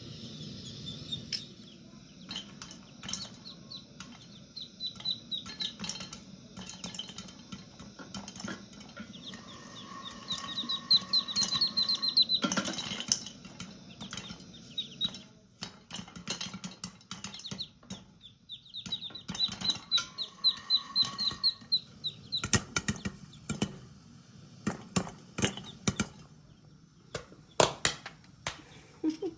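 Corn kernels popping in a hot pot: sharp, irregular pops throughout, coming thicker near the end. A bird's rapid high chirping comes in twice.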